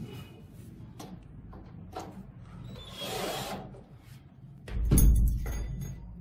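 Cordless drill briefly driving a screw through a metal corner bracket into a wooden bed frame, with a few handling clicks before it. About five seconds in comes a loud heavy thud as the drill is set down on the floor.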